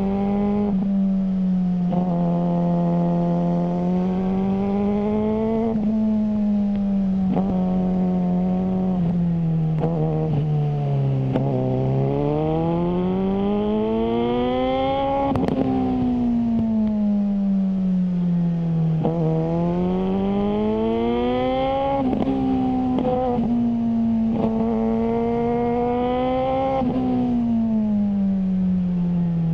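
Suzuki GSR600's inline-four engine breathing through a GPR Ghost aftermarket exhaust, its note climbing steadily and then falling back, several times over, with sudden steps in pitch in between.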